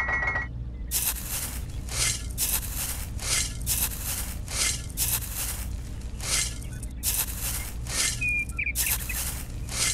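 Raw rice grains scooped with a small spoon and poured into a woven bamboo basket: a short rattling rustle of falling grains about twice a second.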